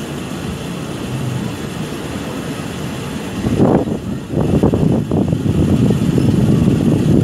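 Steady rumble of a moving vehicle, swelling louder about three and a half seconds in and staying up, with uneven surges.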